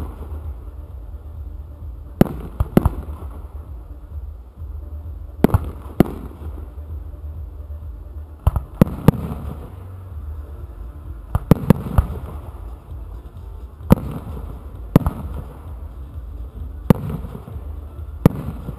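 Aerial firework shells going off in a display: sharp bangs, often two close together, about a dozen in all, every one to three seconds, over a steady low rumble.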